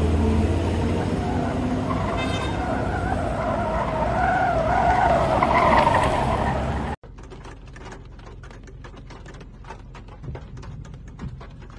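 A car speeding past with its tyres squealing: a wavering screech over road and engine noise that grows louder and peaks about six seconds in. The sound then cuts off abruptly to a much quieter patter of small taps, rain on the car's glass and body.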